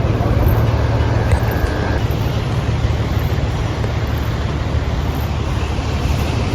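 Steady low engine and road rumble inside a moving van's cabin.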